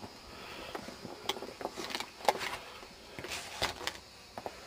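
Footsteps in snow: a handful of irregular steps and knocks, with no engine running.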